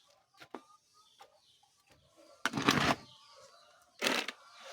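Maize-bran feed being handled and stirred in a basin: a few light knocks, then a loud burst of rustling and scraping about two and a half seconds in and a shorter one near the end.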